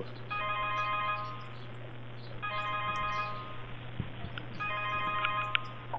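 Electronic alarm going off in three bursts of about a second each, roughly two seconds apart, each burst a chord of steady beeping tones, over a steady low electrical hum.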